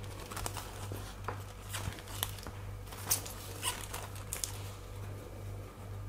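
Thin clear plastic sheet rustling and crinkling in short, scattered crackles as it is handled, over a steady low hum.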